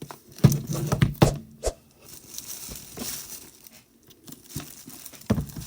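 Plastic packaging crinkling as K-pop albums are handled, with a few sharp knocks in the first two seconds and another near the end as the albums are set down.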